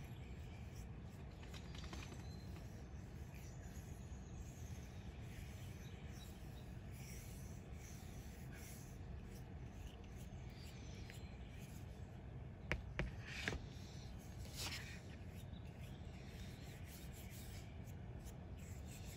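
Faint swishing of paintbrush bristles stroking boiled linseed oil onto a stacked oak hatchet handle, over a steady low hum. A few light clicks come about two-thirds of the way in.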